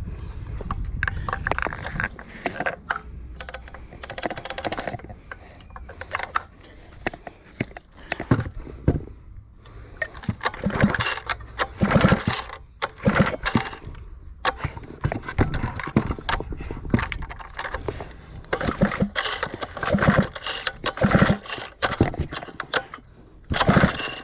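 Irregular metallic clicks, knocks and clatter from hands working on a chainsaw and its parts. The clicks come in clusters and are loudest in the second half.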